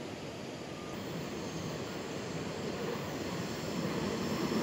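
Rumble of an approaching diesel-hauled passenger train, growing steadily louder as it nears.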